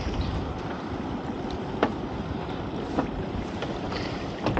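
Wind buffeting the microphone over the sea noise around a small open boat in rough weather, with a few sharp knocks.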